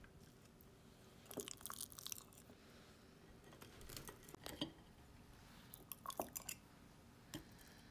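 Faint, scattered clicks and small crunches in a few short clusters, over low room tone.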